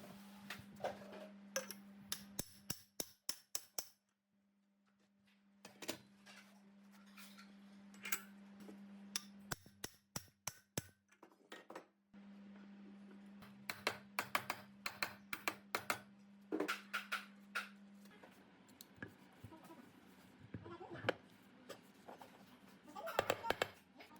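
Many sharp clicks and taps, like small tools and parts knocking on metal, over a steady low hum that cuts out twice for a second or so.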